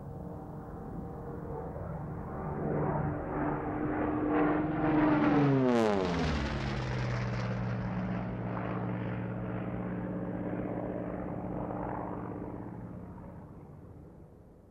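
An engine-driven vehicle passing by. Its engine note grows louder, drops sharply in pitch as it goes past about six seconds in, then fades slowly away.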